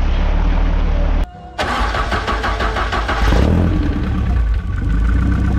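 Off-road vehicle engines running: first a Jeep's engine as it drives through mud, then, after a brief drop-out about a second in, an exposed buggy engine running close up, busy and uneven at first and then settling to a steady run.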